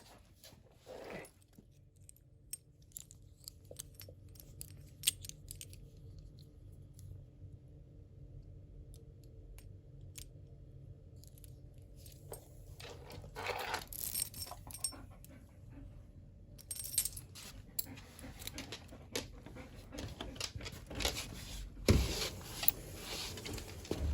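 Small metal pieces jingling and clinking on and off, with scattered clicks and knocks, busier in the second half; a faint steady hum under the first half.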